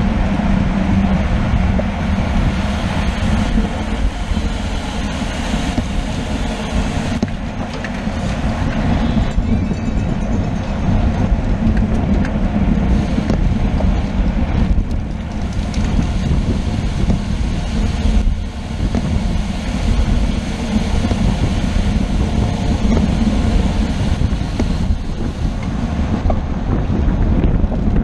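Steady wind rush and low rumble buffeting the microphone of a camera moving with a bicycle racer at speed.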